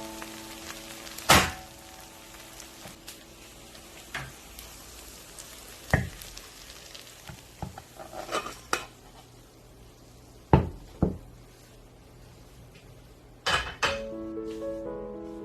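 Food sizzling steadily in oil in a frying pan, with several sharp clinks and knocks of cookware, two of them close together a little past the middle.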